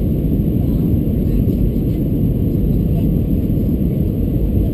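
Steady low rumble of airflow and CFM56 jet engines heard inside the cabin of an Airbus A320-214 airliner.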